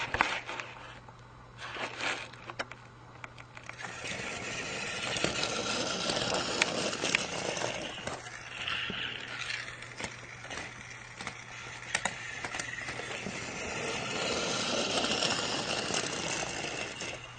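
Battery-powered toy trains running on plastic track: a steady motor whir and rattle with scattered clicks, starting about four seconds in and dropping away near the end. A few sharp clicks come before it.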